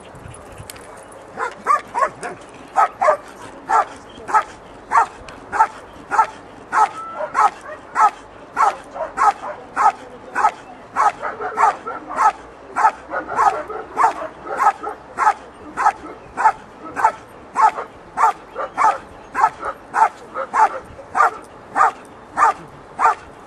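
A dog barks steadily and rhythmically, about two barks a second, at a helper hidden in a protection-sport blind. This is the bark-and-hold, where the dog keeps the helper in place by barking at him.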